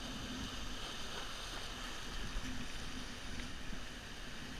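Sea surf washing over and around shoreline rocks, a steady rushing hiss of water.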